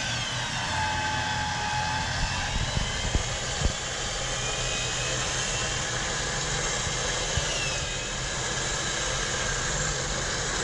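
A four-wheel-drive's engine idling steadily, with a few light knocks and a faint high whine that slides up and down in pitch.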